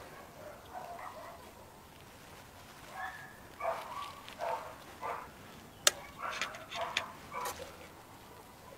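A dog barking in a series of short barks, most of them from about three seconds in, with one sharp click about six seconds in.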